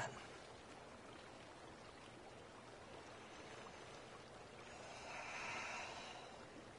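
Faint steady hiss with one soft breath swelling and fading about five seconds in: yoga students breathing slowly through a held pose.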